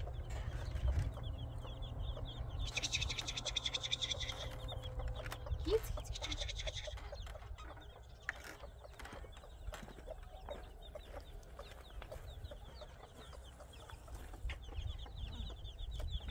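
Birds calling in quick repeated high notes, strongest in the first half and again near the end, with scattered clicks and knocks over a steady low rumble.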